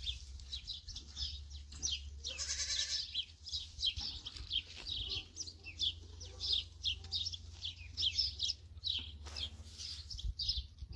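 Small birds chirping continuously. A single loud bleat comes about two seconds in, and fainter bleats follow in the middle.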